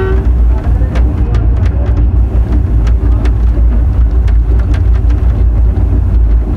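Passenger train running, heard from inside a carriage by the window: a loud, steady low rumble with frequent sharp clicks.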